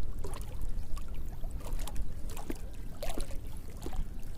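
Water sloshing and trickling, with scattered small knocks and clicks over a steady low rumble.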